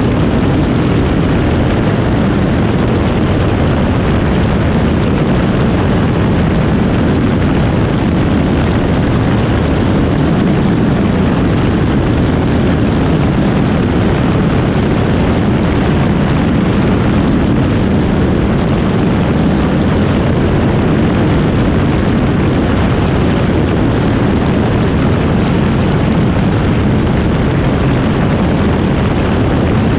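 Cessna aircraft in steady flight: a continuous loud engine drone under heavy wind rush buffeting the tail-mounted camera's microphone.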